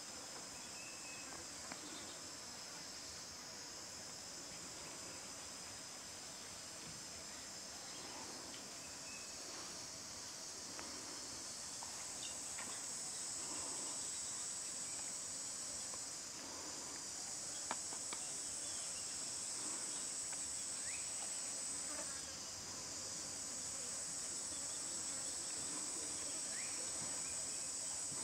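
A steady, high-pitched chorus of insects droning without a break. It grows louder a little before halfway and dips briefly twice.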